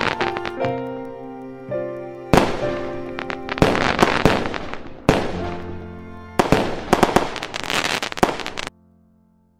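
Fireworks bursting and crackling in repeated volleys over music with held notes. Everything stops abruptly about a second before the end, leaving a faint fading note.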